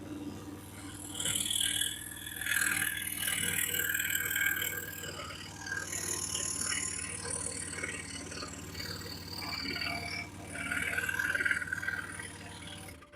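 Excalibur EX21 scroll saw running, its very fine blade cutting a curve through wood flooring: a steady motor hum under a rasping buzz, with high-pitched squeals that shift in pitch as the cut turns.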